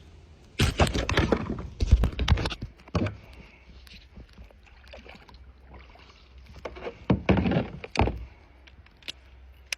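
Kayak paddle strokes splashing in the water: a run of strokes early on, a pause, then more strokes about seven seconds in, with a sharp click near the end.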